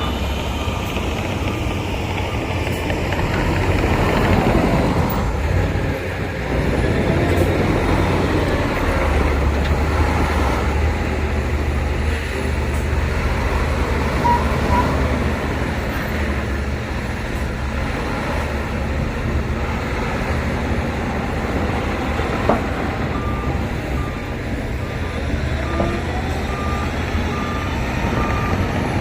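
Heavy diesel earthmoving machinery running steadily, with a reversing alarm beeping at an even pace in the last few seconds.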